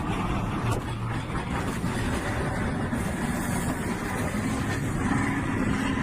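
A vehicle engine running steadily as a low rumble, with wind noise on the microphone.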